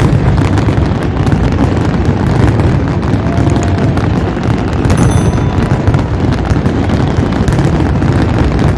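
Fireworks going off in a dense, continuous barrage, with many sharp bangs overlapping without a break.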